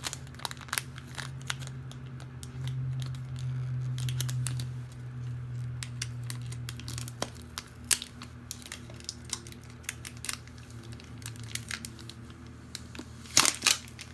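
Shipping packaging being opened by hand: irregular crinkling, tearing and sharp clicks, with two louder snaps near the end. A steady low hum runs underneath, stronger for a few seconds early on.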